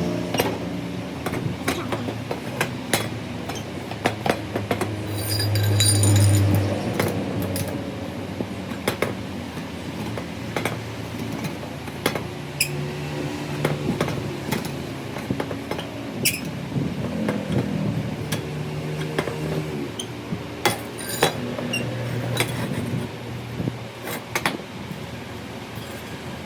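Repeated sharp metal clinks and knocks, irregular and scattered throughout, over a low mechanical hum that shifts in pitch.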